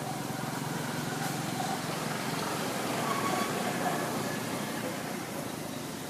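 Low steady engine hum over outdoor background noise, weakening about halfway through.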